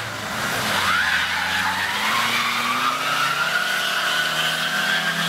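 Opel Astra's wheels spinning on ice with a long whine that rises slowly in pitch as the engine revs up: the car is stuck and cannot get grip.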